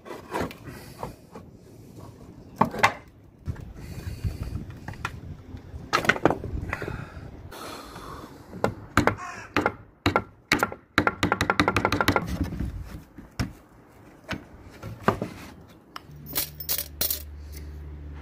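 Hand woodworking: repeated sharp knocks and taps of a chisel and other hand tools on wood, with scraping and metallic clinks and rattles, and a quick run of clicks about halfway through. A low steady tone comes in near the end.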